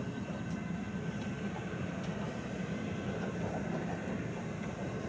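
Ichibata Electric Railway electric train rolling slowly into a station, a steady low rumble from its wheels and running gear, with a faint high steady tone above it.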